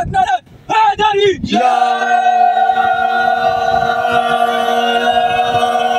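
A group of young men chanting together, breaking off briefly, then giving one shouted call in unison that they hold on a steady pitch for about four and a half seconds.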